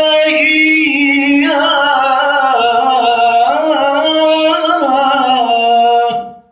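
A man reciting the Quran in melodic tilawah, holding a long ornamented note that wavers up and down in pitch, then breaking off about six seconds in.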